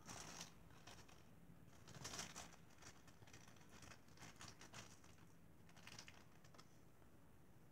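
Faint crinkling of a small plastic bag handled between the fingers, in a few short bursts.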